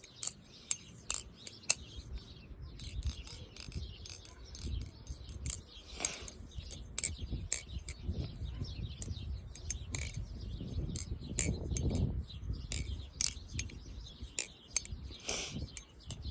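Flytanium 7075-aluminium balisong trainer on bushings being flipped: sharp light metallic clicks and clacks as the handles swing and meet, irregularly spaced, with soft handling noise between. A well-tuned knife, its sound judged very good.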